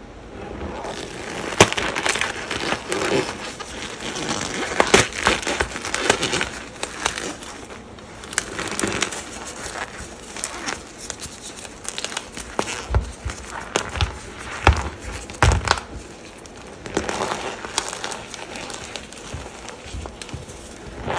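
Bare hands squeezing and kneading a heap of cornstarch over a block of gym chalk: dry powder crunching and crackling under the fingers in irregular bursts, with a few heavier thuds about two-thirds through.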